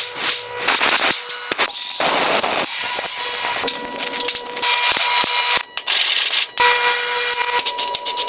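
Workshop tool noise: a rapid series of sharp clicks and knocks with several bursts of hissing.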